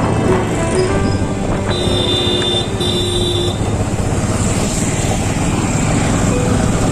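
Bajaj Avenger 160 Street motorcycle's single-cylinder engine running steadily while riding, with wind rushing over the microphone.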